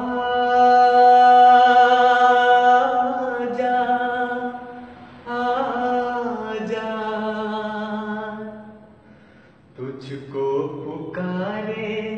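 A young man singing unaccompanied. He holds one long note for about five seconds, sings a second drawn-out phrase, then shorter notes near the end.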